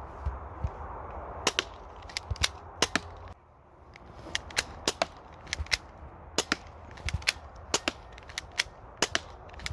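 A run of sharp, irregular clicks and snaps, about two or three a second, over a background hiss that drops away abruptly about a third of the way in.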